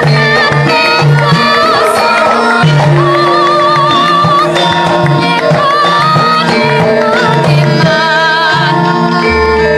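Javanese gamelan music for the Gambyong dance: steady ringing tones with a woman's wavering, ornamented sung line above them.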